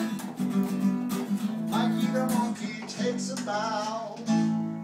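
Two acoustic guitars strumming chords together in a steady rhythm, ending with a final chord struck a little over four seconds in that rings out and fades.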